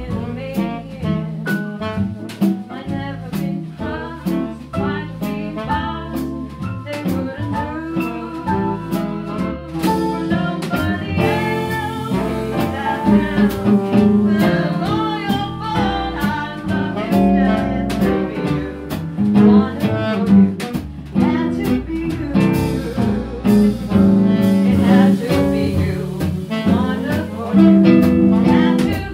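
Small swing jazz band playing live, with piano, archtop guitar, upright bass, saxophone, trumpet and drums behind a woman singing into a microphone.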